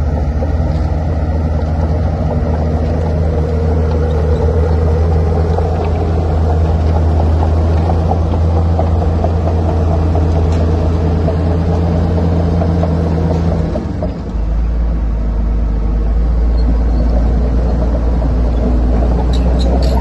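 Komatsu D41P crawler bulldozer's diesel engine running steadily and loud. About fourteen seconds in the level dips briefly and the engine note drops to a lower pitch.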